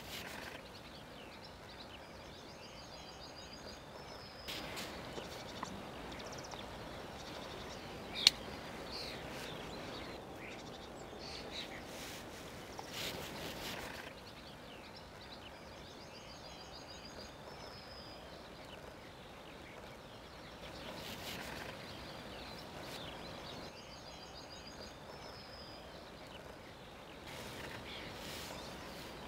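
Songbirds singing in open country over a steady background hiss. A short high song phrase, a quick run of notes ending in a slurred note, repeats every several seconds. There is a single sharp click about eight seconds in.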